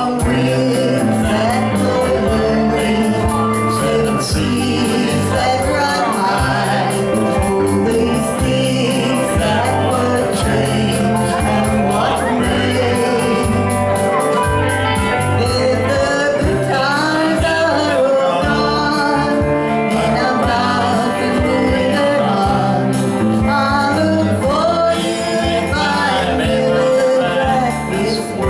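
Country-folk song: a sung melody over guitar accompaniment, played steadily throughout.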